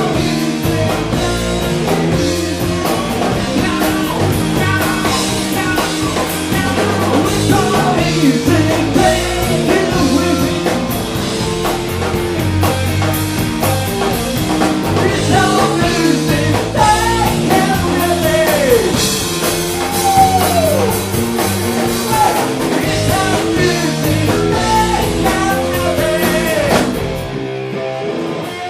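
Rock band playing live with drum kit, bass and electric guitar, and a few notes sliding down in pitch in the middle. Near the end the drums and bass stop, leaving a guitar ringing on.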